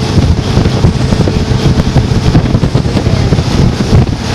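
Motorboat running at speed, with wind buffeting the microphone and the rush of water along the hull.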